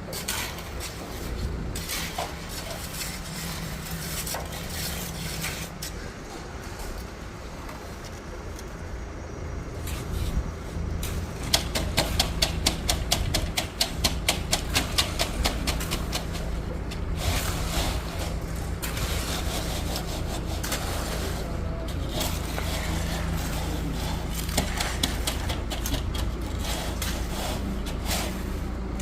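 Shovels and trowels scraping and spreading wet concrete, in repeated rubbing strokes that quicken to about four sharp scrapes a second for several seconds around the middle. A steady low engine hum runs underneath.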